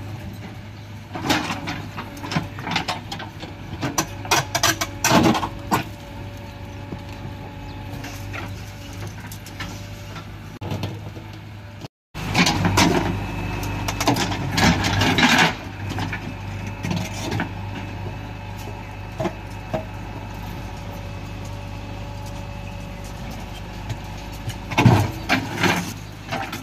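JCB 3DX backhoe loader's diesel engine running steadily while its digging bucket scrapes and knocks against soil, rubble and broken concrete in three spells of clatter.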